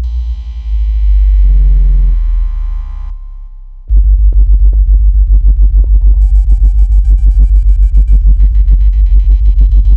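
Synthesized water-ejection tone: very deep bass tones with steady higher tones above them, then about four seconds in a loud deep bass that pulses several times a second, with high steady tones joining partway through. It is made to vibrate earbud speakers hard enough to push water out of them.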